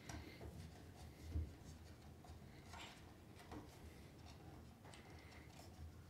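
Faint ticks and scrapes of knurled thumbscrews being turned by hand to tighten a 3D-printed clamp base, with a soft knock about one and a half seconds in.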